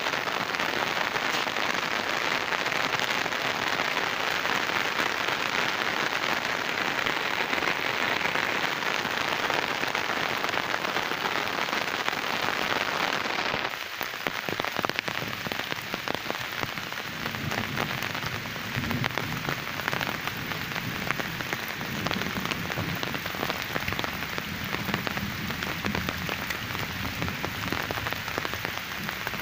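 Heavy rain falling steadily on a pond, a dense even hiss. About halfway through the sound cuts to a slightly lighter rain, with separate drops ticking close by and a low rumble that comes and goes.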